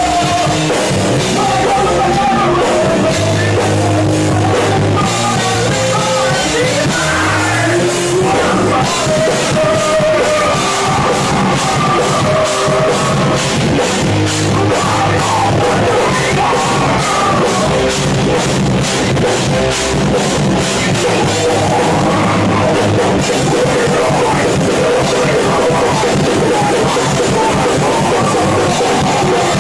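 Rock band playing live in a small room: drum kit, electric guitar and a singer singing and shouting into a microphone, loud and steady.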